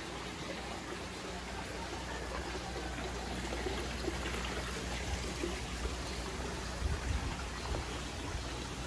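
Garden pond water feature: water trickling and running steadily over rocks. A few low bumps come about seven seconds in.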